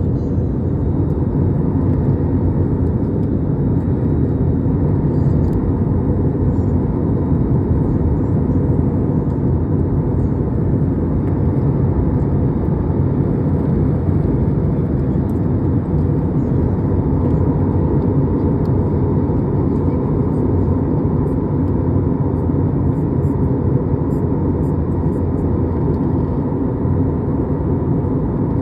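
Steady, unchanging low rumble of a moving vehicle.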